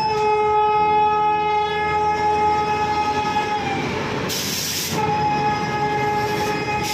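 Electric locomotive's air horn sounding a long blast of two notes together, stopping about three and a half seconds in. A brief hiss follows, then the horn sounds again from about five seconds in.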